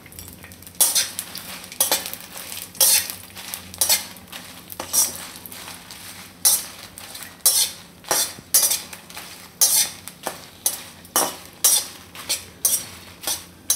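Flat metal spatula scraping and stirring dried red chillies, bay leaves and dry coconut around a metal kadai, in repeated strokes of roughly one to two a second, coming faster in the second half, over a low sizzle of oil.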